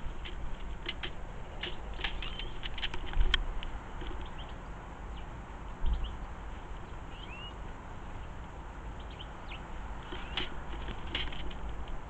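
Feral pigeon pecking seed off a wooden bird table: an irregular patter of quick sharp taps. Faint small-bird chirps in the background, and two dull low thumps about three and six seconds in.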